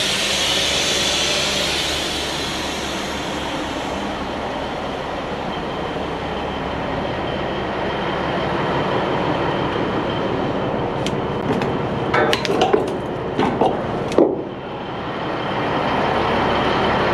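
Compressed air hissing out as the rear air suspension is dumped to lower the rig, loud at first and slowly fading over several seconds, over a steady low hum. A short cluster of clicks and knocks comes about two-thirds of the way in.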